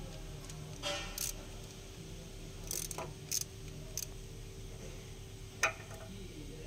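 Light metallic clicks and clinks of an 8 mm socket on an extension being fitted onto a bolt under the truck, a handful of separate sharp ticks with the loudest near the end, over a steady low hum.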